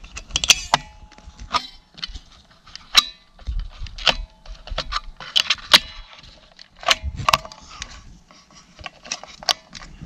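AA batteries clinking against one another and clicking out of a trail camera's plastic battery tray as they are taken out, in a dozen or so irregular sharp clicks and clinks, some with a brief metallic ring.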